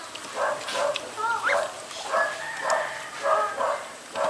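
A dog barking repeatedly, short barks coming several times, some in quick pairs.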